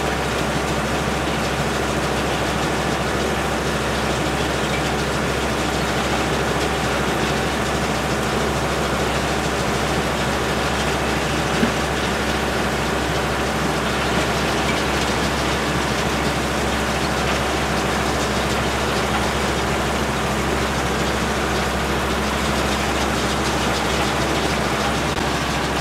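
Tractor engine running steadily under load, driving a round baler-wrapper combination that is baling.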